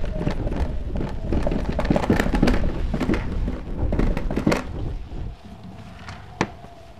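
Thunderstorm: a heavy rumble of thunder over rain, with many sharp crackles through it. The rumble cuts off suddenly about five seconds in, leaving a faint steady hum and a single sharp click near the end.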